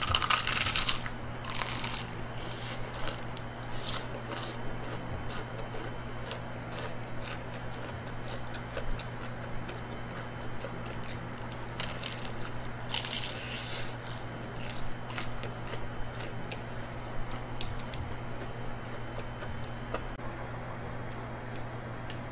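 Crunchy bites into the crisp crust of plain fried chicken, one about a second in and another about 13 seconds in, with crackling chewing in between.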